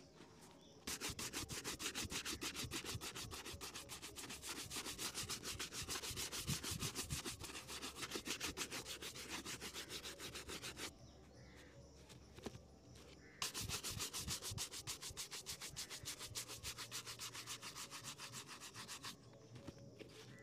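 A bristle shoe brush scrubbing fast back and forth over a leather shoe, several strokes a second, in two bouts: a long one starting about a second in, then a short pause and a second bout that stops about a second before the end.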